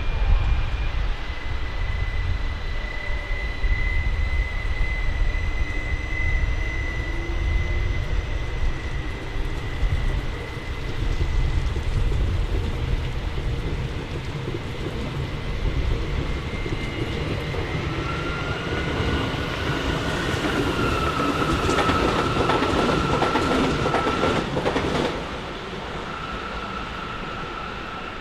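A train moving through a station: a steady low rumble with thin high whines over it. About twenty seconds in comes a run of sharp wheel clicks over rail joints, and then the noise drops off.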